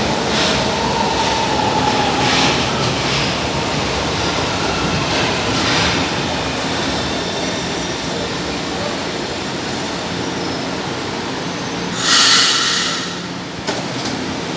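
São Paulo Metro train running along the platform: a steady rumble of wheels on rail, with a faint wheel squeal in the first couple of seconds. About twelve seconds in comes a short loud hiss.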